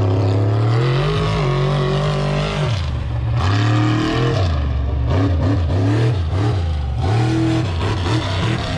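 Off-road truck engine running at high revs, then revved up and down over and over, its pitch rising and falling about once a second.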